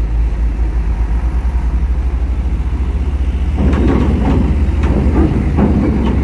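Vehicle engines running at a low, steady hum. From about three and a half seconds in, a series of irregular clanks and knocks is heard as an Isuzu box truck's wheels roll off the ferry ramp onto the steel deck grating.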